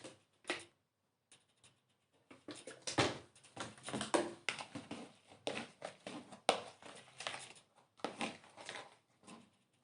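Glue-and-shaving-foam slime being mixed and worked with borax activator, a run of irregular short handling noises starting about two seconds in. The slime is still sticky and needs more activator.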